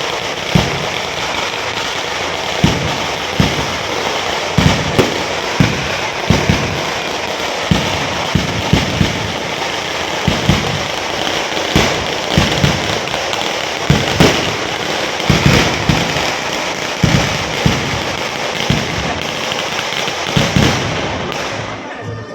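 Firecrackers going off: a rapid, irregular run of sharp bangs, several a second, over a constant crackling hiss, which dies away just before the end.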